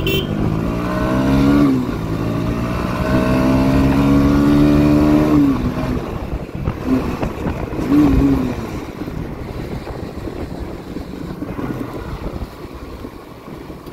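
Motorcycle engine on the move, its pitch rising twice as the rider accelerates and dropping as the throttle closes. Two short blips follow near the middle. The engine then gives way to a steady noise that grows quieter toward the end.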